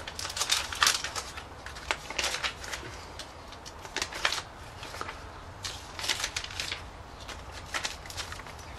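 Thin glossy catalogue pages being turned by hand one after another, the paper rustling and crackling in quick clusters every second or so.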